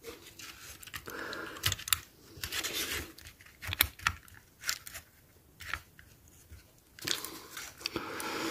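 Plastic handling noise as a Hornby OO gauge locomotive chassis is pressed and worked into its plastic body shell to line up the lugs: a handful of sharp plastic clicks among scraping and rustling.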